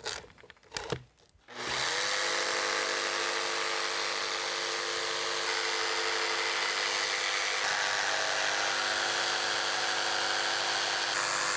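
Corded jigsaw cutting a curve in a thin plywood template sheet. After a couple of light knocks, the motor starts about a second and a half in and runs steadily as the blade saws through the wood.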